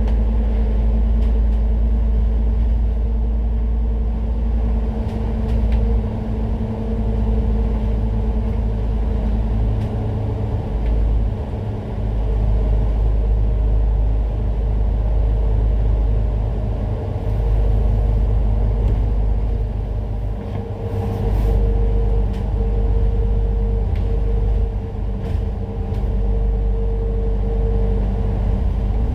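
Citybus bus in motion, its engine and drivetrain giving a steady low rumble with a droning whine. The deep engine drone eases off briefly several times and comes back.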